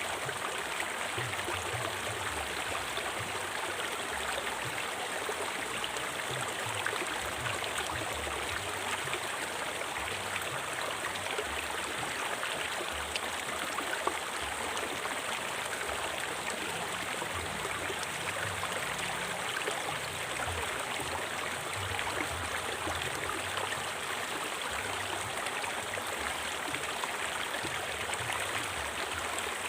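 A river flowing, a steady, continuous rush of moving water with a low, fluttering rumble beneath it.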